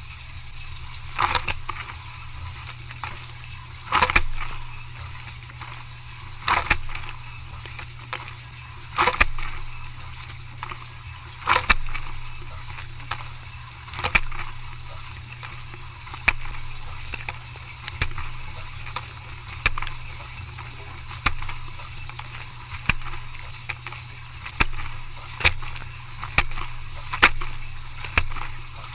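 Dishwasher running its wash: a steady low pump hum under regular swishes of spray water, about one every two and a half seconds at first and coming faster, nearly once a second, toward the end.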